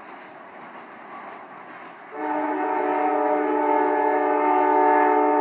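Multi-chime air horn of a CN SD75I diesel locomotive sounding one long blast. The blast starts abruptly about two seconds in, over the faint rumble of the approaching train.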